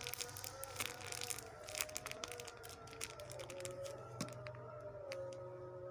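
Faint crinkling and light clicking of plastic being handled, with a faint steady tone underneath.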